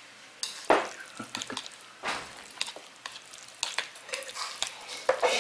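Wooden chopsticks mixing jjajang noodles and their thick black-bean sauce in a ceramic bowl: wet, sticky stirring sounds with irregular clicks and taps of the chopsticks against the bowl.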